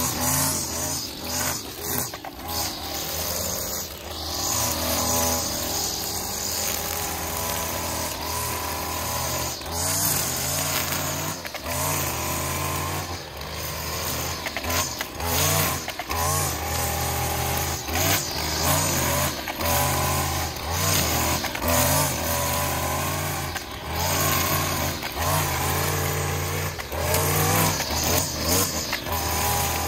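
Gas string trimmer's two-stroke engine running at high speed, its pitch rising and falling, as the spinning line edges grass along a concrete curb.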